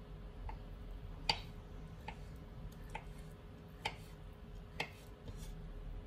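Small kitchen knife slicing through a soft avocado half and tapping the wooden cutting board at each cut: a row of light, evenly paced knocks, a little under one a second.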